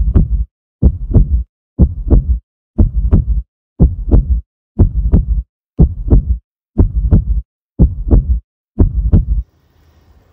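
Heartbeat sound effect: a loud double beat about once a second, ten times, stopping abruptly about nine and a half seconds in.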